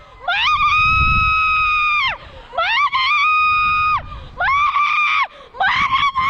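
A woman screaming during a bungee jump: four long, high-pitched held screams with short breaks for breath between them, over a low rumble.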